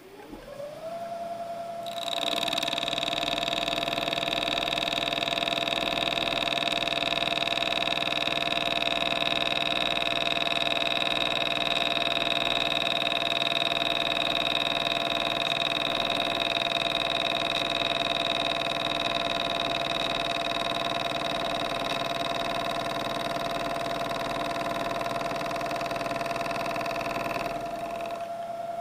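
Milling machine spindle spinning up with a rising whine, then a corner-rounding end mill cutting along the edge of an aluminium plate. The cut is a steady, loud, high-pitched sound lasting about 25 seconds, on a light 5-thousandths pass fed by hand crank. Near the end the cutting stops while the spindle keeps running.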